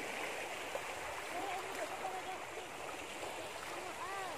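Shallow seawater washing and lapping at the shoreline, a steady wash of water noise, with faint distant voices and a short call near the end.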